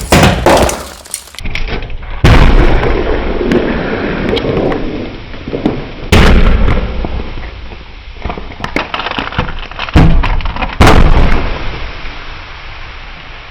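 A car tyre crushing objects: a run of loud bursts, cracks and crunching, with sudden hard pops about two, six, ten and eleven seconds in.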